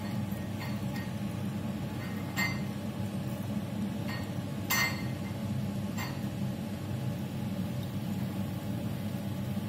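AeroPress coffee maker being pressed slowly down onto a mug, giving four light clinks and clicks, the loudest about five seconds in, over a steady low hum.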